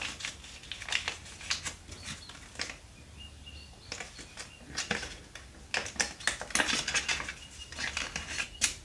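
Paper money rustling as a banknote is folded and slid into a small paper envelope: a run of short, irregular crinkles and light taps with brief quiet gaps.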